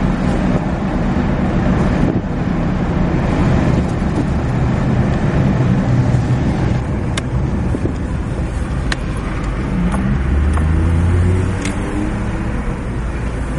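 A car driving, heard from inside the cabin: steady engine and road noise, with a few light clicks along the way.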